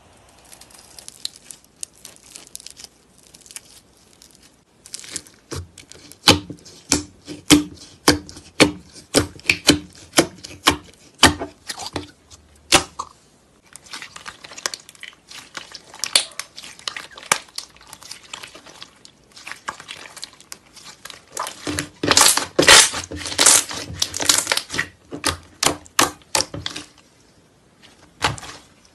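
Hands squeezing, pressing and stretching slime packed with green foam chunks, making a run of sharp crackly pops and clicks. The pops are sparse at first, come quickly from about five seconds in, and are thickest in a stretch of dense crackling in the last third.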